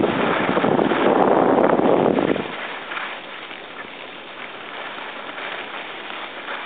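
Wind rushing over the microphone of a moving skier, mixed with the hiss and scrape of skis sliding on snow. It is loud for the first two and a half seconds, then drops off to a much quieter hiss.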